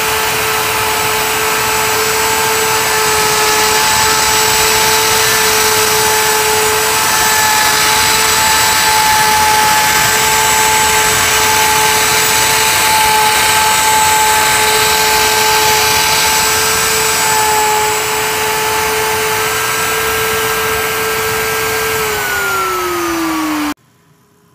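CNC router spindle running, a steady high whine over loud noise as its pointed bit carves into a small piece of wood. Near the end the whine drops in pitch as the spindle winds down, and the sound then cuts off abruptly.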